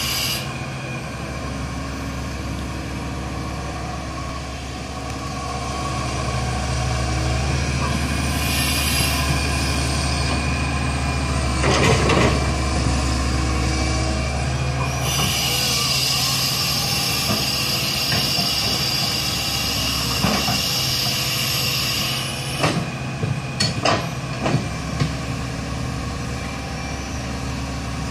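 A Fiat-Hitachi crawler excavator's diesel engine and hydraulics are working through a dig-and-load cycle, and the engine note rises under load. About twelve seconds in there is a rush as a bucket of earth drops into the tipper truck's body. A high hydraulic whine follows as the arm swings back, and a few clanks of the bucket come near the end.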